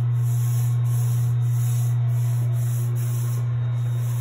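Steady low hum with an airy hiss over it; no speech.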